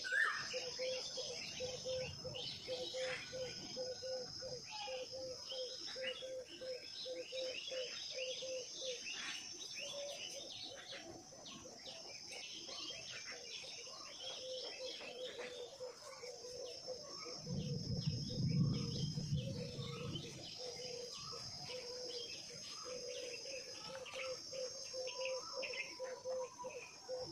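Birds chirping and calling over a steady high insect drone, like crickets. A low sound swells briefly about two-thirds of the way in.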